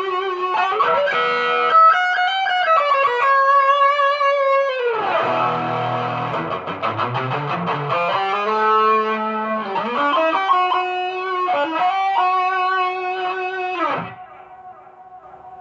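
Ibanez GIO electric guitar playing a lead line of sustained notes, with a deep downward pitch dive about five seconds in and another near the end, where the playing drops away to a faint ring.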